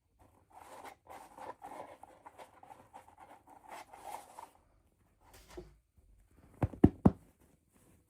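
Hands handling toy packaging: a scratchy rustling and rubbing for about four seconds, a short scrape, then three quick sharp clicks near the end, the loudest sounds.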